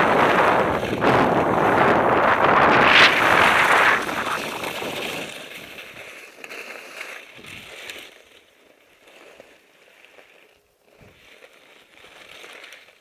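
Wind rushing over the microphone and skis hissing over snow during a run, fading out about four to five seconds in as the skier slows to a stop. Afterwards only faint, scattered crunches of skis and boots shifting on snow.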